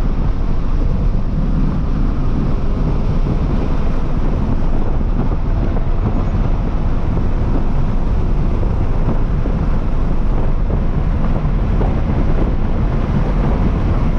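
2023 Toyota GR86's 2.4-litre flat-four engine pulling at speed on a race track, heard from inside the cabin, mixed with loud, steady road and wind noise.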